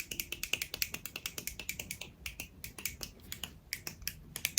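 A fast, uneven run of crisp clicking taps, about eight to ten a second, thinning out briefly around the middle.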